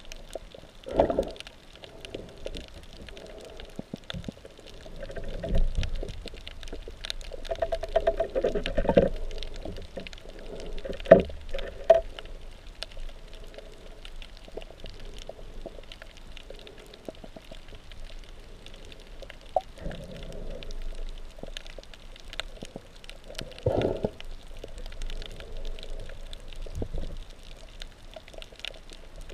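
Underwater sound heard through a GoPro Hero3+ waterproof housing while swimming: muffled water sloshing and gurgling, with several louder gurgling surges and scattered faint clicks.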